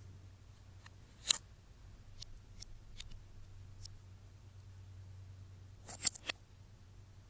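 A few short, sharp clicks: one loud click about a second in, fainter ticks after it, and a quick cluster of three near the end, over a low steady hum.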